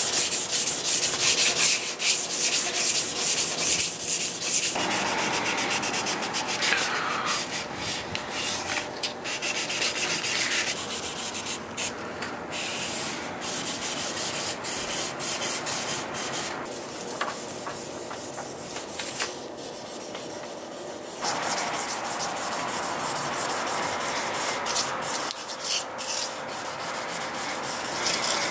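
Sandpaper on a block rubbing back and forth along a metal knife blank in quick, repeated rasping strokes, with a quieter stretch about two-thirds of the way through.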